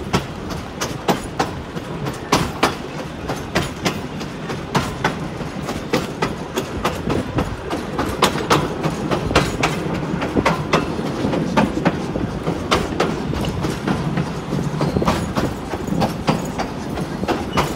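Vintage passenger carriage rolling along the track: a steady rumble broken by frequent sharp clicks and knocks from the wheels and running gear.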